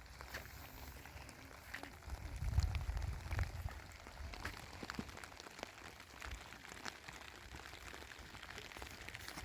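Rain falling, with many scattered drops ticking. A low rumble swells up between about two and four seconds in.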